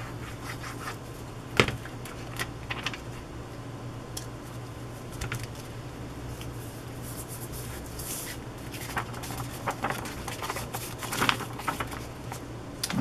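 Paper being handled on a craft table: a magazine clipping glued and smoothed down onto a journal page, then the page picked up, with scattered rustles and light taps, one sharp click about a second and a half in and busier rustling near the end. A steady low hum lies underneath.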